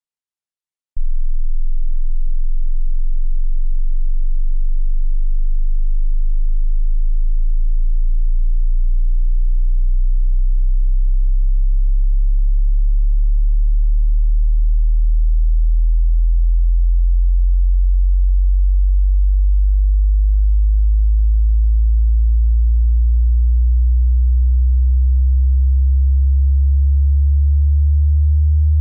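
Hearing-test frequency sweep: a single pure sine tone that starts abruptly about a second in as a very deep hum and glides slowly and steadily upward in pitch.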